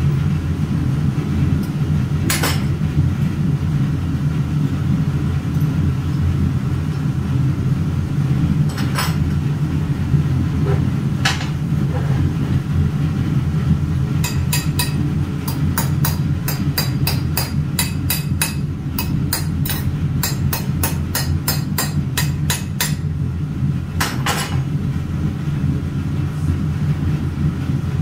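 Metal tools knocking on a metal casting mold: a few separate sharp knocks, and in the middle about nine seconds of fast light taps, three or four a second. A steady low hum of workshop machinery runs underneath.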